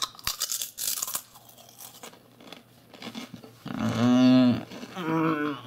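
Wavy-cut potato crisps (Lorenz Crunchips Roasted) crunching as they are bitten and chewed, a quick run of crunches in the first second, then sparser chewing. Partway through come two wordless vocal sounds from the eater, a longer one and then a shorter one near the end, louder than the crunching.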